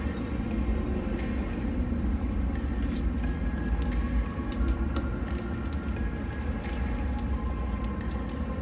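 An engine running steadily with a low rumble, with a few light clicks and knocks over it.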